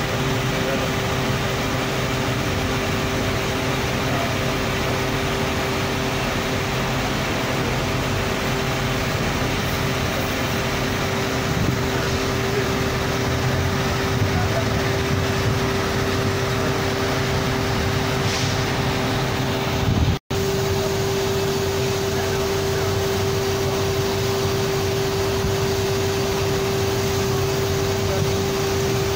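Steady roadside noise of traffic and a running engine with a constant hum, under the voices of a crowd of onlookers. The sound cuts out for a moment about twenty seconds in, and the hum is stronger afterwards.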